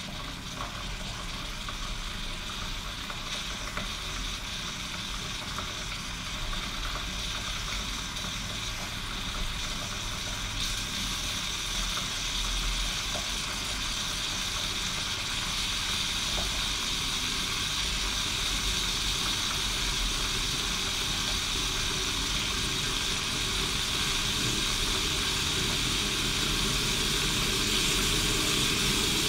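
Vintage East German Kaffee Boy K500 coffee machine brewing: a steady steamy hiss and sizzle as the boiling water is forced up and through to the coffee, growing slowly louder.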